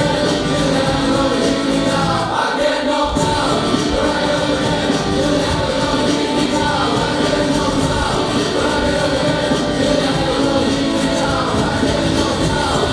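Recorded music with a group of voices singing together over a full accompaniment; the bass drops out for a moment about two and a half seconds in.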